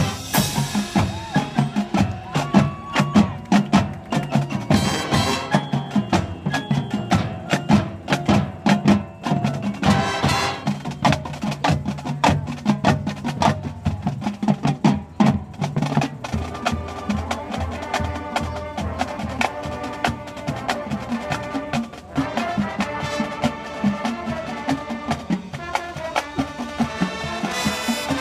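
High school marching band playing its competition field show, with percussion prominent: rapid struck drum and mallet hits under sustained pitched notes.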